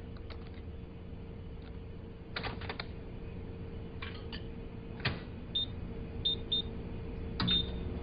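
Clicks and knocks of a microwave oven being handled and its buttons pressed, then four short high beeps from its keypad over the last few seconds as the time is set and the oven started.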